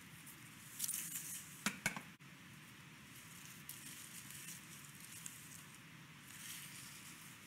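Faint kitchen handling sounds: paper rustling, and a stainless-steel bowl set down on a steel worktop with two quick clinks just before two seconds in. Softer rustles of paper follow.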